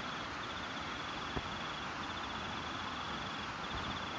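A night insect's high, pulsing trill in bursts about a second and a half long, repeating every two seconds or so, over a steady hiss. One short sharp tick about a second and a half in.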